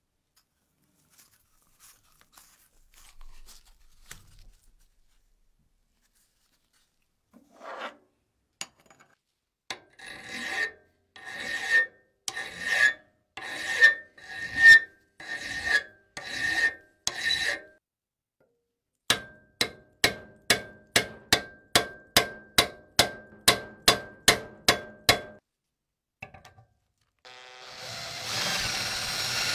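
Hand scraping strokes on a metal part that rings, about one stroke a second, then a faster run of sharper strokes about two a second. Near the end a power tool starts and runs steadily.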